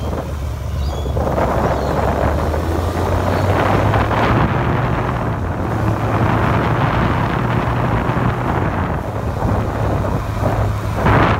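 Wind buffeting the microphone of a moving camera, over a steady low hum from the vehicle carrying it, with a stronger gust near the end.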